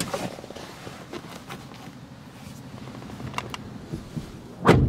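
Scattered clicks and rubbing as someone moves about a pickup truck's rear seat area, then one heavy thump near the end.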